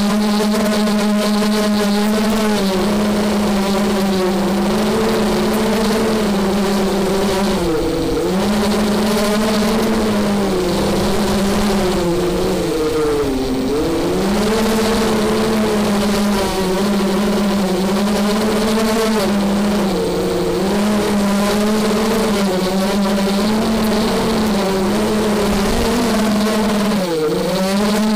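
Small multirotor racing drone's brushless motors and propellers buzzing at a steady high pitch in flight. The pitch swoops down and back up about eight seconds in, again around thirteen seconds, and near the end, as the motor speed briefly drops and recovers.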